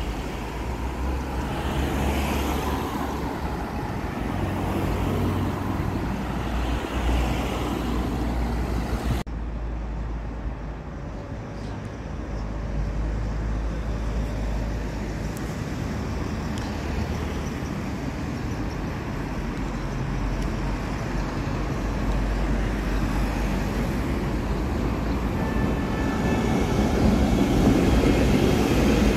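Street traffic with a tram running in on its rails, a modern low-floor tram first. After an abrupt cut about nine seconds in, a PCC tram approaches and passes close by, growing louder near the end.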